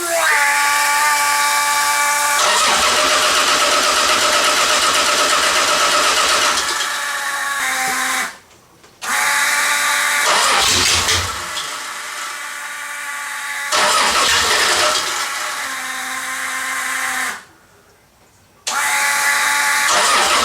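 Starter cranking the sand rail's Chevy 3.1L V6, with a whine in the first couple of seconds, in three long attempts split by two short pauses, about eight and seventeen seconds in. The new MAP, air temperature and oxygen sensors have not cured its running fault.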